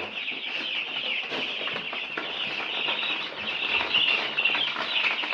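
A brooder full of four-day-old broiler chicks peeping continuously in a dense high chorus, with rustling and scuffling in the litter as they move about.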